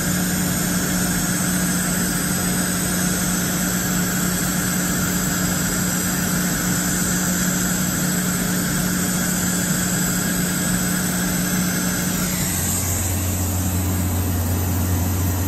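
DMG Mori DMU 125 monoBLOCK 5-axis machining center running with a steady hum and hiss, a constant tone underneath, as its table traverses under a dial test indicator. A few seconds before the end the tone fades and a lower drone takes over.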